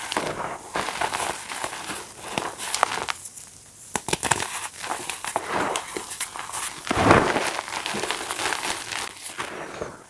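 Reformed gym chalk being crushed: a run of crisp crunches and crackles, with a louder crunch about seven seconds in.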